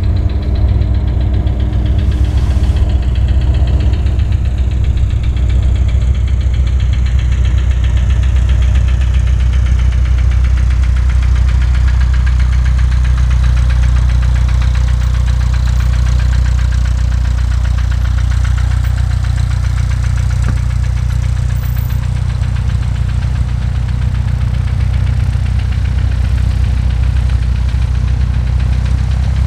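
Sonex light aircraft's piston engine and propeller running at low power while the plane taxis, a steady low drone throughout.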